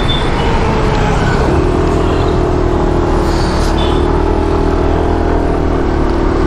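Motorcycle riding noise: the bike's engine running at a steady cruising pitch under heavy wind rumble on the microphone, with an engine note holding steady from about a second and a half in.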